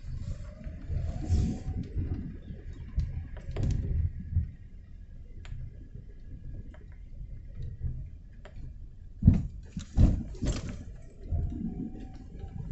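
Rainy city street ambience: a steady low rumble of vehicle engines, with an engine's pitch rising near the start and again near the end. Scattered clicks run throughout, and two sharp knocks come about nine and ten seconds in.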